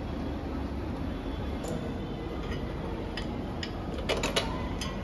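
Scattered light metallic clicks and taps of hand tools and bolts while a saddle stay bracket is fitted to a motorcycle, with a quick cluster of clicks about four seconds in, over a steady low background rumble.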